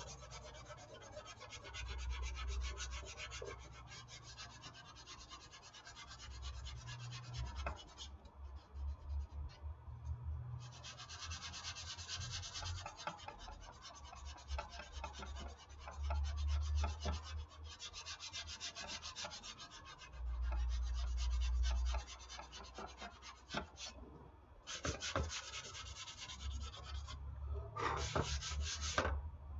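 Fine-grit sandpaper rubbed by hand over dried wall spackle on a foam model-airplane wing, a rasping hiss in several spells of back-and-forth strokes with brief pauses, smoothing the filler over a repair.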